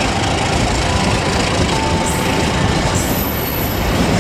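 Passenger train coaches rolling past on curved track: a steady rumble of steel wheels on the rails, with a faint thin squeal about halfway through.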